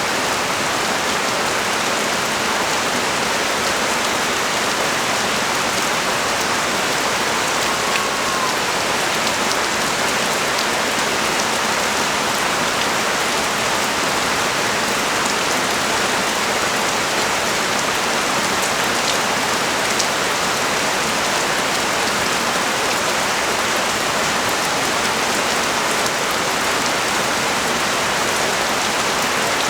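Steady rain falling on a street and nearby surfaces, a dense even hiss that holds without letting up.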